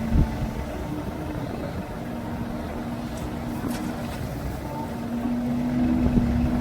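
Heavy truck engine running with a steady low drone, growing louder near the end.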